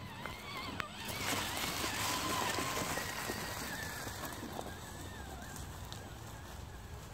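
Vaterra Ascender Bronco RC crawler climbing a leaf-covered dirt slope: its electric motor and drivetrain whine, wavering in pitch with throttle and load, over the crackle of its tyres crunching through dry leaves. It gets loud about a second in as the truck passes close, then fades as it climbs away.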